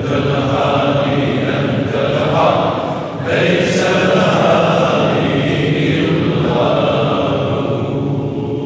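A group of men chanting dhikr together, a continuous sung chant of many voices that breaks off briefly about three seconds in and then resumes.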